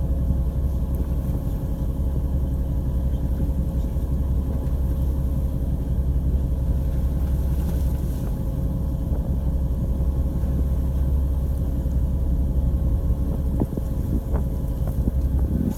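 A fishing boat's motor running steadily: a constant low drone with a faint steady hum above it.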